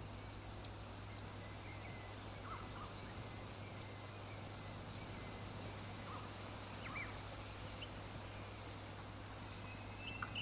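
Outdoor field recording with a steady low hum and background noise, and a few short, high bird chirps at scattered moments.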